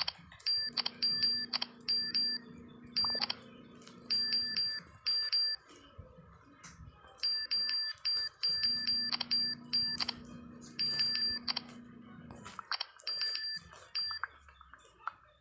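Smartphone keyboard key-press sounds: quick runs of short, high chime-like beeps, one per tapped key, in bursts with short pauses between words. A low steady hum comes and goes under them.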